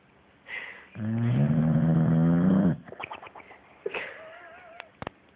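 A sleeping pet's loud snore, a cartoon-like snore: one long buzzing snore of nearly two seconds, then a few soft clicks and a faint wavering whistle.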